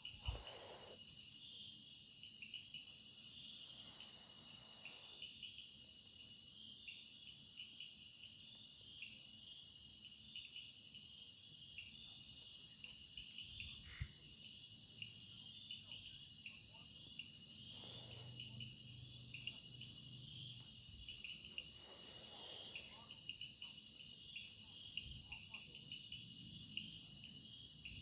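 Insect chorus, crickets and similar: several steady high trills at different pitches, finely pulsing, running together without a break. A few faint low rustles and thumps come and go underneath.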